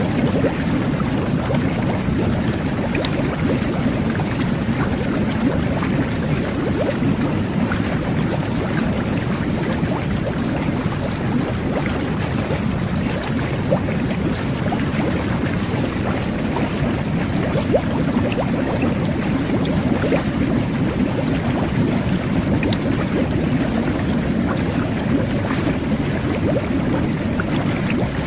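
Jet bath (jacuzzi) running: water churning and bubbling steadily under the jets, with a low rumble.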